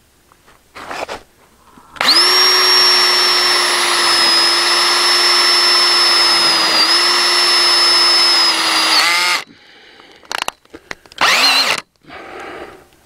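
Cordless drill driving a self-tapping screw into the steel pipe of a greenhouse frame: the motor runs steadily for about seven seconds with a brief dip in pitch partway, then winds down. A short burst comes about a second in and another short burst near the end.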